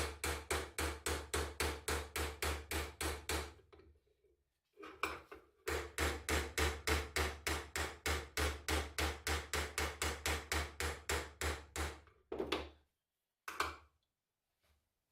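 Rapid, even hammer taps, about four to five a second, in two long runs with a short break. A few single knocks follow near the end.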